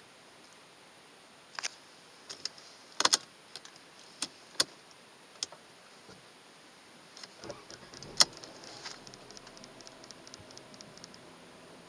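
Clicks and knocks of a key and the car's controls, then a short rumble about seven seconds in as the Mercedes-Benz C180's M271 four-cylinder petrol engine starts, a sharp click, and the engine settling to a faint steady idle.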